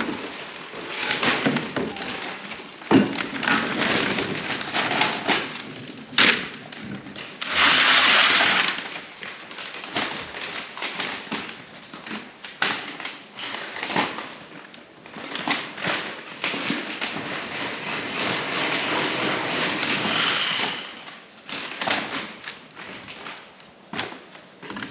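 Potatoes being handled and bagged: repeated knocks and thuds, with a loud rattling rush about 8 seconds in and a longer one later.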